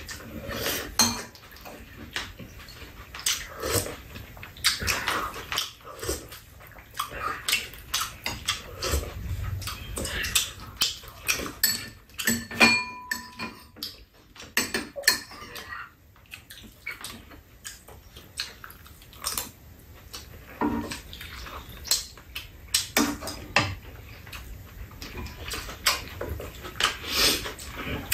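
Metal spoons and chopsticks clinking irregularly against bowls and a metal tray, with the mouth sounds of two people eating. One clink about halfway through rings on briefly.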